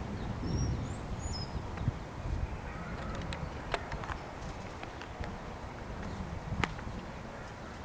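Storm wind rumbling on the microphone, easing after a thunderclap, with a few short high bird chirps about a second in and scattered sharp ticks throughout.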